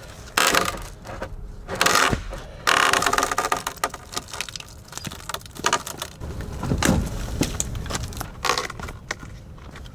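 Hand-held extendable-head hedge shears snipping and crushing through branches, with twigs and leaves rustling and snapping in irregular bursts.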